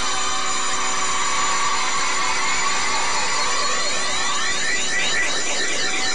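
Steady drone made of several sustained tones. From about halfway a wavering, swirling sweep rises over it.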